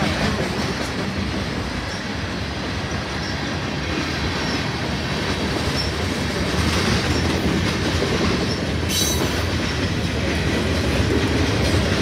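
Freight train cars rolling past at a grade crossing, a steady heavy rolling noise of wheels on rail, with a brief sharp high sound about nine seconds in.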